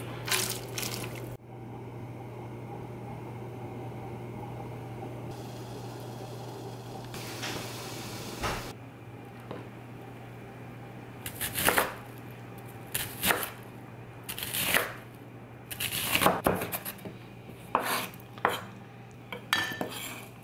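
Pieces of diced cactus scraped off a ceramic bowl into a pot of water right at the start. Then a chef's knife dices an onion on a wooden cutting board through the second half, in quick runs of sharp chopping strokes with short pauses between.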